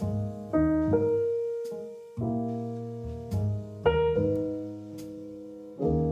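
Piano music: chords and single notes struck and left to ring and fade.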